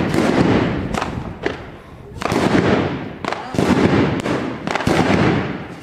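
B509 Mascleta firecracker battery going off: an irregular string of loud bangs over a continuous noisy din of smaller reports.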